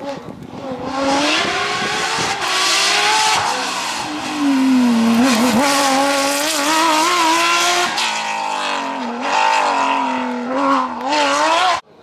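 Porsche 997 GT3 rally car's flat-six engine at high revs as the car comes past at speed. The engine note rises and falls with the throttle and gear changes, dipping in the middle. It cuts off suddenly near the end.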